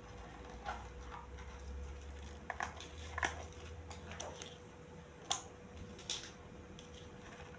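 A handful of short sharp clicks and knocks, about six spread over several seconds, from the parts of a portable cordless washer being handled and fitted together, over a faint steady hum.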